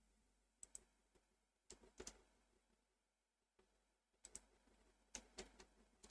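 Computer keyboard typing, a few faint, scattered key clicks against near silence.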